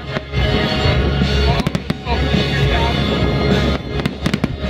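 Aerial firework shells bursting: a quick run of sharp bangs about one and a half seconds in and another near the end, over loud music with a heavy bass.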